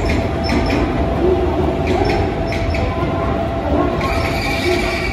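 A dark grey JR Kyushu electric express train runs past along the platform with a steady rumble. The wheels click over the rail joints in repeated pairs as each bogie passes. A high steady whine comes in near the end.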